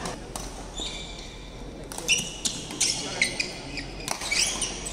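Badminton doubles rally: sharp racket strikes on the shuttlecock, several in quick succession from about two seconds in, with sneakers squeaking on the wooden court, echoing in a large sports hall.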